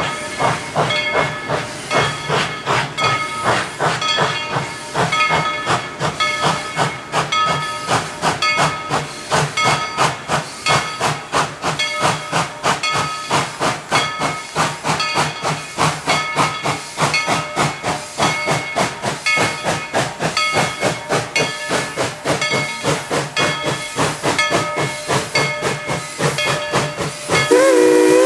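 Tweetsie Railroad No. 190, a narrow-gauge steam locomotive, working under steam: a steady rhythm of exhaust chuffs over hissing steam. Its steam whistle starts to blow, a held chord of several notes, just before the end.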